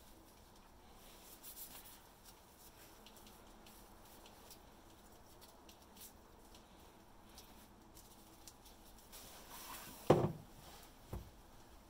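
Faint rustling of nitrile gloves working plumber's putty around a drain plug, then a sharp thump about ten seconds in as the putty-sealed plug is pressed into the drain of the plastic in-bed trunk, with a smaller knock a second later.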